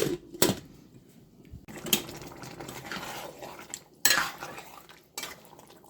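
Metal kitchenware clanking against a cooking pot of chicken curry: a few sharp clanks, the loudest about four seconds in, with quieter scraping and stirring between.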